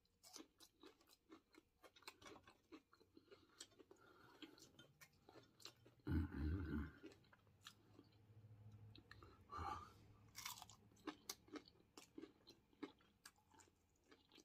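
Close-up chewing of fried catfish nuggets: soft crunching of the breaded crust and wet open-mouth lip smacking, as many short clicks. There is a brief louder low sound about six seconds in.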